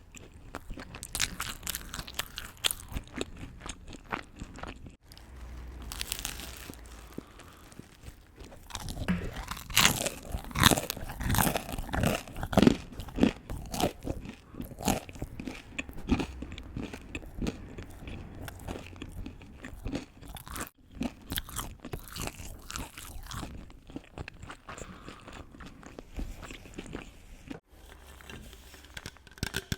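Close-miked eating: crunchy bites and chewing, a dense run of crisp crackles with the loudest crunches about a third of the way in.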